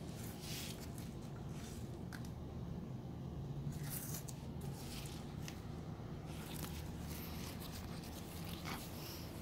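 Scattered light rustling and scraping from hands handling pepper plants and a plastic plant tag close to the microphone, over a steady low background hum.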